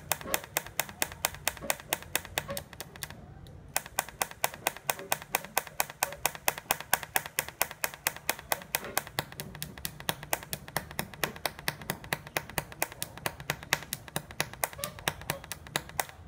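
Automatic weld-ripple pulse controller for a TIG welder clicking in a fast, even rhythm of about four to five clicks a second, set to its fast rate. The clicking pauses briefly a little over three seconds in, then carries on.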